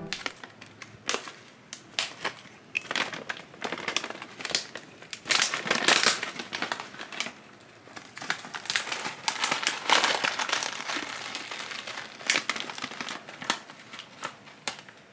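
Irregular crinkling and crackling, with many sharp clicks that come and go unevenly.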